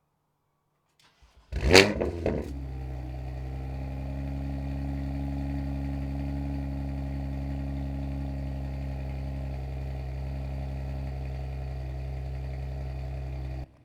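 BMW M2 Competition's twin-turbo straight-six, breathing through an Active Autowerke equal-length mid pipe and Milltek cat-back exhaust, starting up: a short, loud flare of revs about a second and a half in, then settling into a steady idle that cuts off suddenly near the end.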